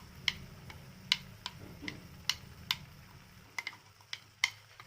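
About a dozen sharp, irregular clicks and ticks as ground green-pea paste is spooned into the hot kadhai, with a low steady hum under them that fades near the end.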